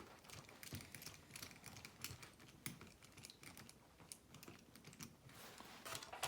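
Faint, irregular small clicks and taps of fingers and a small tool working a wheel nut onto the plastic wheel of a 1/24-scale RC crawler.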